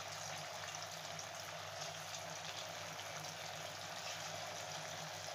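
Marinated chicken pieces deep-frying in hot oil in a heavy aluminium kadai: a steady sizzle as pieces are dropped in one by one.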